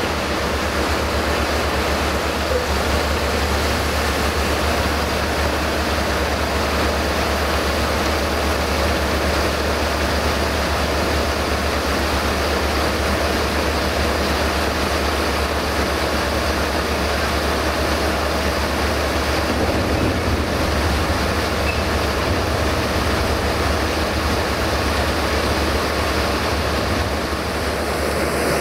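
Tractor engine running steadily under load, driving a PTO-powered grain conveyor, with maize rushing through the auger into a rail hopper wagon. It is a continuous low hum under an even rushing noise, unchanged throughout.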